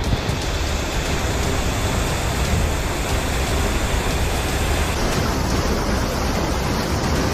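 Heavy rain and strong wind of a tropical squall: a loud, steady, dense rush with a deep rumble underneath, the hiss becoming duller about five seconds in.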